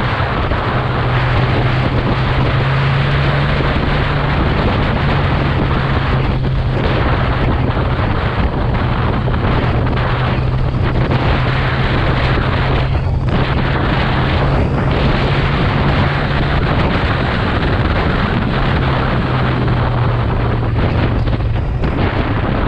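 Kawasaki motorcycle engine droning at a steady cruising speed, under loud wind rushing over the microphone.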